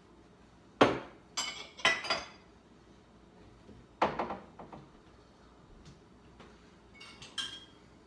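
Dishes clinking and knocking together as a dishwasher is unloaded and the items are put away. The sharpest knock comes about a second in, with runs of clinks around two and four seconds and lighter ringing clinks near the end.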